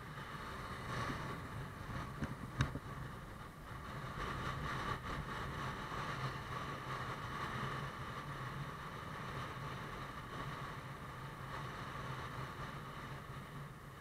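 Motorbike engine running steadily while riding, with road and wind noise. A single sharp knock comes about two and a half seconds in.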